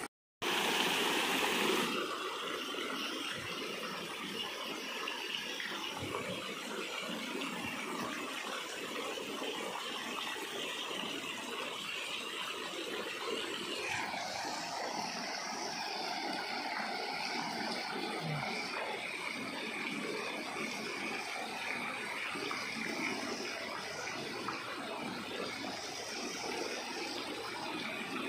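Garden fountain's many water jets splashing steadily into a shallow basin, a continuous hiss of falling water that turns a little brighter about halfway through.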